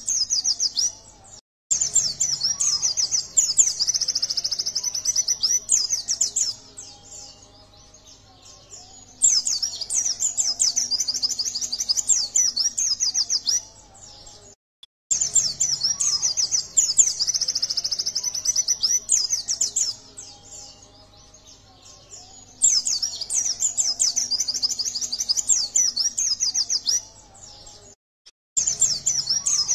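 Yellow-breasted white-eye (pleci) singing a fast, high-pitched twittering song in bursts of several seconds, with quieter pauses between them. The sound cuts out completely for a moment three times: about a second in, about halfway through, and near the end.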